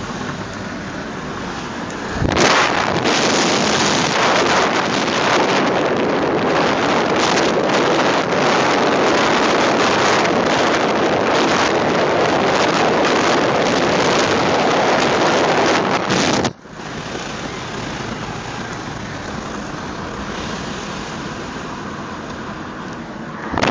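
Car at about 100 km/h: steady road and engine noise, then about two seconds in a much louder rush of wind buffeting the microphone, held out of the window. The wind noise cuts off suddenly about 16 seconds in, and quieter, steady driving noise follows.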